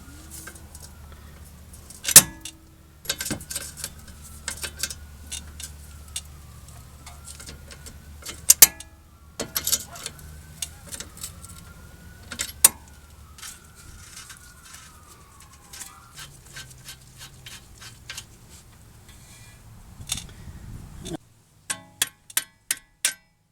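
A large steel strut-to-knuckle bolt being unscrewed and worked out of a minivan's front strut with hand tools: repeated metallic clicks and clinks, with a squeak that rises and falls over and over as the bolt turns. A few separate clicks come near the end.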